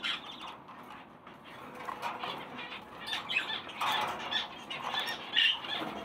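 Sun-kissed conures, a colour mutation of the green-cheeked conure, giving short, soft chirps and chatter that start about two seconds in, with some light rustling.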